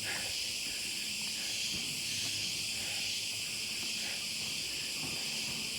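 Steady high-pitched chorus of insects in subtropical forest, an even shrill hiss.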